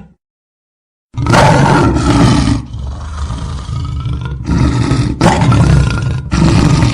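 About a second of silence, then an African lion roaring: one long loud roar, a stretch of lower rumbling, and then a run of three short, loud roars near the end.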